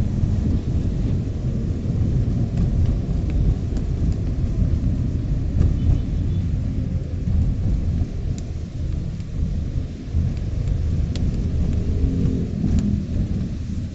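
Steady low rumble inside a car driving on a wet road in light rain, with a few faint ticks scattered through it.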